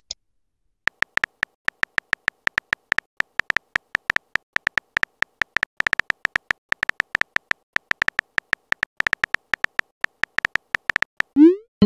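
Simulated phone-keyboard key-click sounds from a texting-story app, a quick, uneven run of about five or six taps a second as a message is typed letter by letter. Near the end a short rising tone sounds as the message is sent.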